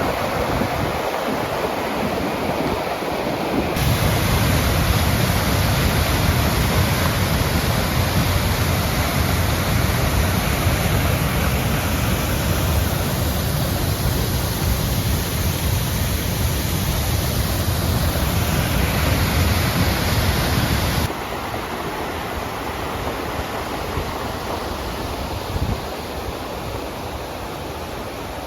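Floodwater rushing down a rambla, a normally dry gully, running in spate after a storm: a steady, loud rush of water. About four seconds in it turns louder, with a deep rumble, and about twenty-one seconds in it turns quieter again.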